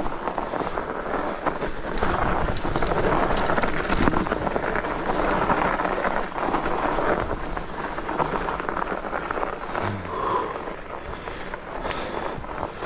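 Fat bike's wide tyres rolling and crunching over fresh snow, with wind on the microphone; the crunching grows louder about two seconds in and eases off after about seven.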